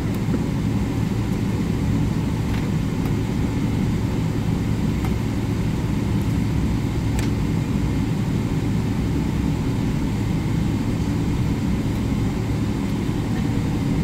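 Steady low rumble of cabin noise inside a Boeing 777-300 airliner, from its engines and air conditioning, with a few faint ticks.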